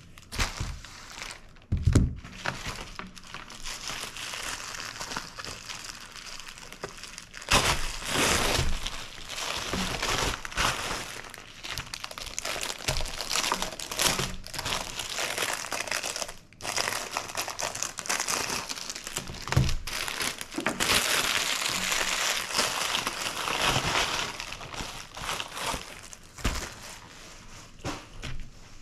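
Plastic packaging bag crinkling and rustling while a binder is worked out of it, with a few dull knocks of things set down on a wooden table.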